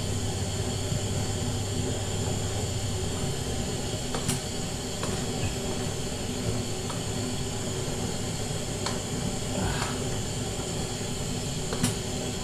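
Diced meat sizzling with a steady hiss in a large aluminium pot while a wooden spoon stirs it, with a few sharp knocks of the spoon against the pot. A low hum stops about three seconds in.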